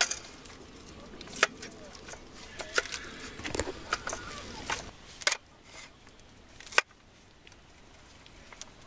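A knife chopping vegetables on a wooden cutting board: about seven sharp, irregular knocks, roughly a second apart, with a quieter stretch near the end.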